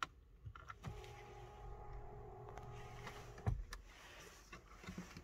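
Faint clicks and the steady whir of a small electric motor inside a BMW F10's cabin. The whir starts about half a second in and stops with a click about three and a half seconds in, with a few small knocks after.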